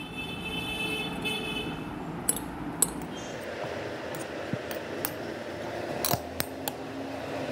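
A metal spoon stirring chopped vegetables in a glass mixing bowl: a steady rustling scrape, with a few sharp clinks of the spoon against the glass.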